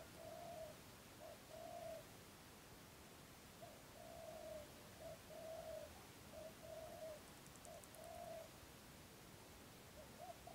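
Spotted dove cooing faintly: a repeated two-part coo, a short note followed by a longer one, about seven times over.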